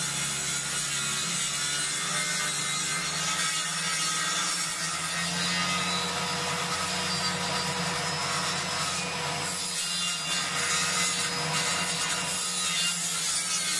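Circular table saw (sawbench) running steadily while its blade rips a thin birch log lengthwise down the middle.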